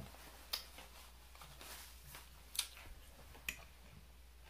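Quiet eating sounds from a romaine salad being picked at and chewed: soft crackling with three sharp clicks, the loudest a little past halfway.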